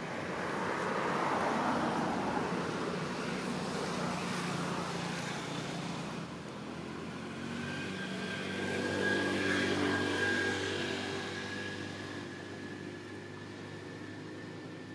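An engine running, passing by: it swells about two seconds in, eases, then swells again about nine seconds in. A thin steady whine joins in the second half.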